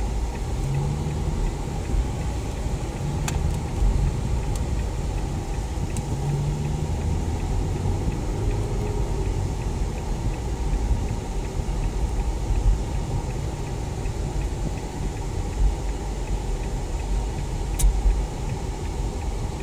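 Cabin noise of a Chevrolet Captiva on the move: a steady low rumble of engine and road, with a few brief sharp clicks.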